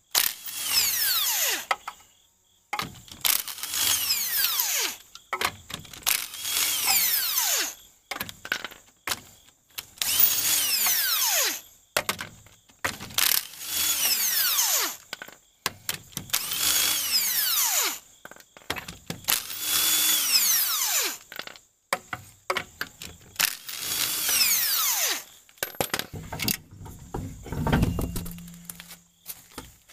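Milwaukee M18 cordless impact wrench spinning off the lug nuts of a Chevy Silverado 2500 HD wheel: about eight short runs of a second or two each, with the pitch falling in each run and small clicks of the nuts being handled in between. Near the end comes a low rumble as the wheel is pulled off the hub.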